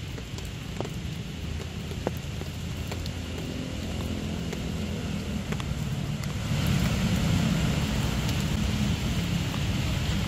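Rain falling, with scattered short drop ticks over a steady low rumble; it gets louder about six and a half seconds in.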